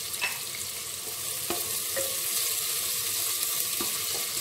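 Sliced onions frying in hot mustard oil in an aluminium pressure cooker, a steady sizzle, with a few light scrapes as a wooden spatula stirs them.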